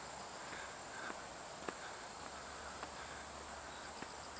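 Footsteps on a dirt forest path, a few soft steps, over a steady high-pitched drone of insects.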